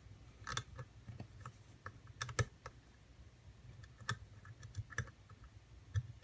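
Lock pick and tension wrench working the pins of an ABUS padlock: irregular light metallic clicks and taps, one louder click about two and a half seconds in.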